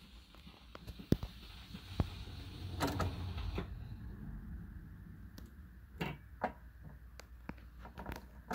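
A record turntable spinning a 45 rpm single after the music has ended, with faint stylus surface hiss, a low steady rumble and scattered sharp clicks. The hiss drops away about three and a half seconds in, and a few more sharp clicks and knocks follow.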